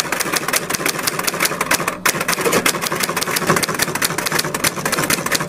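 Recorded typewriter sound effect: a fast, continuous run of key clacks, about ten a second, breaking off briefly about two seconds in.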